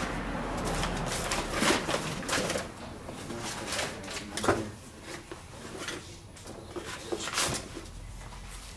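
Scattered knocks, clicks and rustling of parts and tools being handled on a workbench, with a few sharper knocks spread through it.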